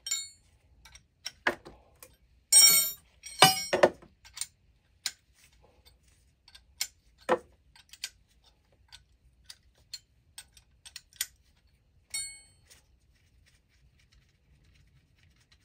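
Metallic clicks, clinks and knocks as an oil burner's nozzle and electrode assembly is handled with a wrench. A cluster of louder knocks comes about three seconds in, and a couple of short ringing clinks come near the start and about twelve seconds in.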